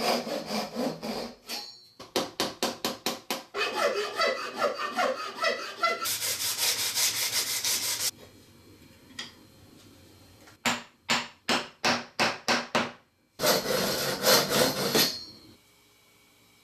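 A fine-toothed hand saw cutting wedge slots into an oak tenon, in runs of quick back-and-forth strokes about four a second, and sandpaper rubbing along the oak handle, with short pauses between runs. It falls quiet near the end.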